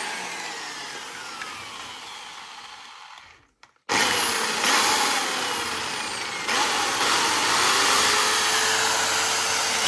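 Hammer drill switched to non-hammer mode and run at low speed, working into wood. It runs, stops for a moment about three and a half seconds in, then starts again and runs on, getting louder a few seconds later.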